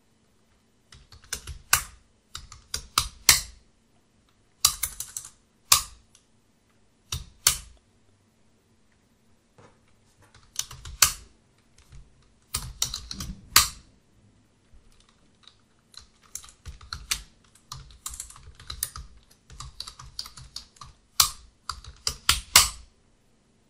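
Typing on a computer keyboard: short bursts of keystrokes and single key presses, with pauses between them.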